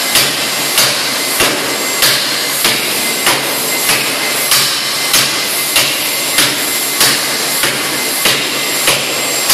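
C41 series pneumatic forging hammer striking a red-hot metal bar in a steady rhythm, about one blow every 0.6 seconds, drawing the bar out. A continuous machine noise from the running hammer carries on between the blows.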